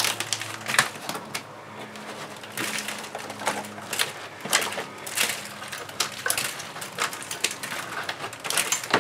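Rotted deck wood in an old wooden boat cracking and crumbling as it is broken and pulled out by hand, giving irregular small snaps and clicks.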